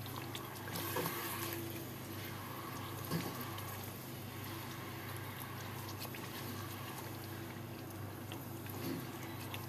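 A silicone spatula stirring thick chicken curry in a non-stick pot: faint wet sounds of the gravy with a few light knocks, over a steady low hum.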